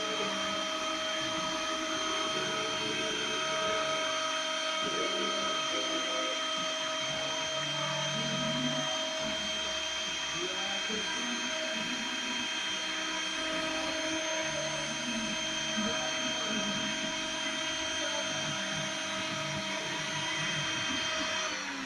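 CNC milling machine cutting a printed circuit board: the spindle runs with a steady high whine and hiss, while the stepper motors driving the axes hum at pitches that shift every second or so as the tool moves. The spindle sound stops right at the end.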